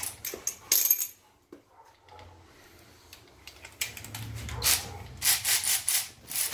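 Loose metal hand tools clinking and clattering: a few sharp ringing clinks about a second in, then a run of heavier clattering near the end, the sound of someone rummaging through tools.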